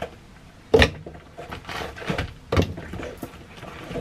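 Frozen fruit chunks dropped into a plastic blender cup, landing with sharp clunks, one loud one about a second in and another near the three-quarter mark, with smaller knocks and handling noises between.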